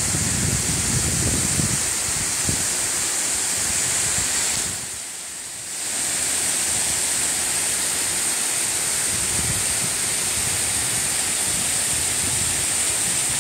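Steady rush of small waterfalls pouring into a rock pool, with wind gusting on the microphone at times. The whole sound drops briefly about five seconds in.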